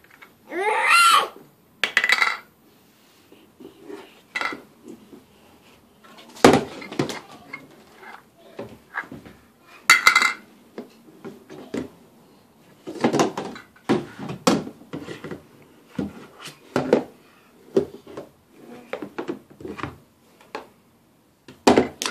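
Small metal loaf pans clanking and knocking irregularly as a baby handles and bangs them against a plastic toy kitchen and the floor. There is a short high squeal about a second in.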